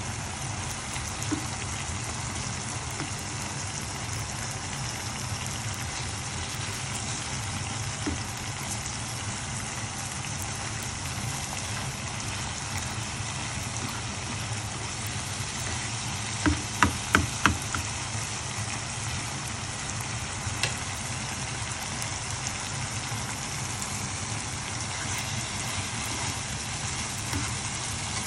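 Sliced eggplant, onion and tomato sizzling in a frying pan as they are stirred with a slotted spatula, over a steady low hum. About two-thirds of the way through comes a quick run of four or five taps of the spatula against the pan, then one more a few seconds later.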